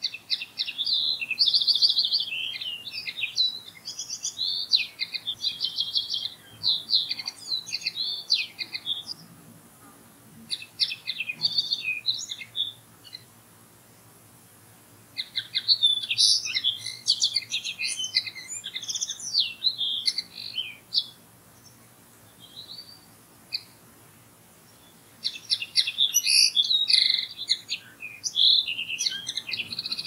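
Common linnet singing: long, varied twittering phrases that come in about four bouts, broken by pauses of a few seconds.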